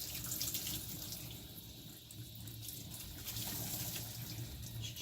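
Water running from a tap or shower and splashing, a steady hiss that is strongest in the first couple of seconds.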